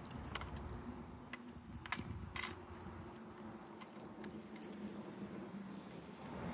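Strap buckles and hardware of a sling backpack clicking and jingling as the bag is handled, a scattering of light sharp clicks over a low steady hum.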